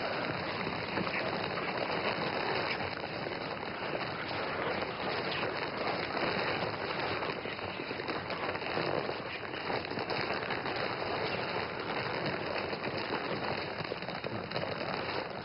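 A steady, even hiss of noise with no distinct events.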